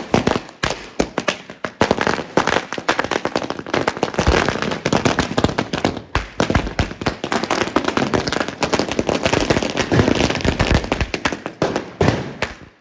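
Firecrackers going off in rapid succession: a dense, continuous run of sharp bangs and pops for about twelve seconds, dying away just before the end.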